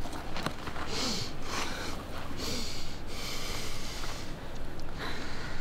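A person breathing heavily through the nose: several loud, hissing breaths in and out, one after another.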